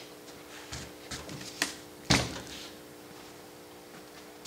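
The removed South Bend 9-inch lathe apron, a heavy cast-iron gear housing, set down with one solid clunk about two seconds in, after a few lighter clicks and knocks of handling. A faint steady hum sits underneath.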